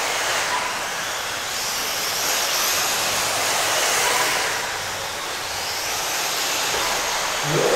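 Several radio-controlled race cars running laps together, their motors whining over a steady hiss, with the pitch rising and falling as the cars come by.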